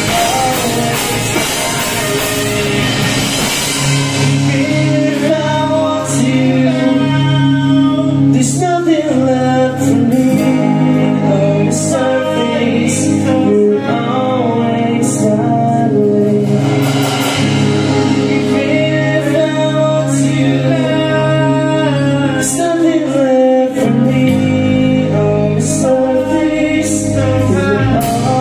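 Live rock band playing: electric guitars, bass and a drum kit with cymbal hits, with a voice singing over them.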